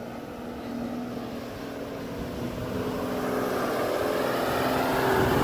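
A four-wheel-drive vehicle's engine running, growing steadily louder as it draws nearer.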